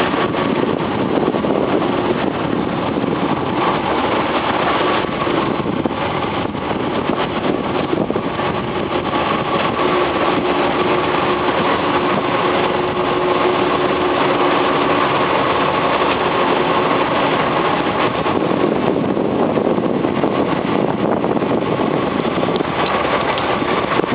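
Tour boat's engine running steadily, a constant noisy drone with a few faint steady tones in it.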